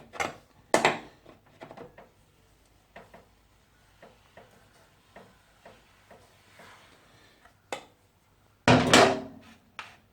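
Hand tools knocking and clicking against metal parts of a motorcycle's rear end: two sharp knocks near the start and light scattered ticks, then a loud clank with a short ring near the end.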